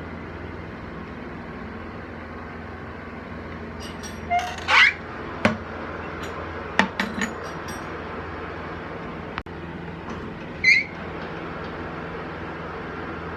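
Lathe running with a steady hum, with a few sharp metallic clinks and short squeals of metal on metal from about four seconds in, and another squeal near the end.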